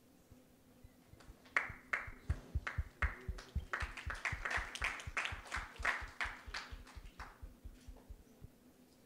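Applause from a small audience, quick hand claps starting about a second and a half in and dying away a few seconds later, over a faint steady hum.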